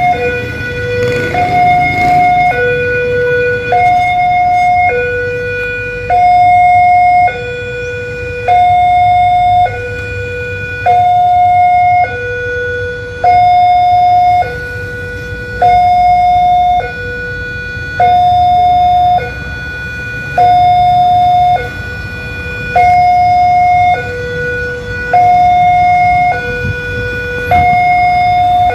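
Railway level-crossing warning alarm sounding its two-tone electronic chime, a lower and a higher tone alternating about once a second each, signalling that a train is approaching and the barriers are closed. Road traffic rumbles underneath.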